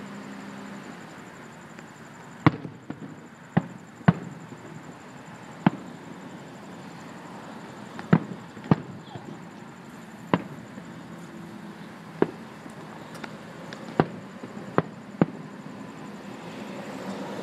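Aerial firework shells bursting: about a dozen sharp bangs at irregular intervals, a second or two apart, over a steady background hiss.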